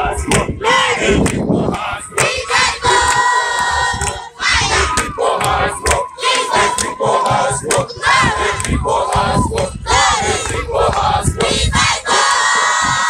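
A crowd of people shouting and singing together in celebration, many voices overlapping, with pitches that rise and fall and some long held notes.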